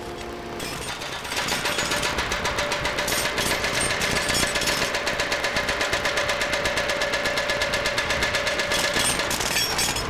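Jackhammers hammering rapidly as they break up the old road surface, a fast, even rattle of blows with a steady hum beneath. It grows louder about a second in and eases off near the end.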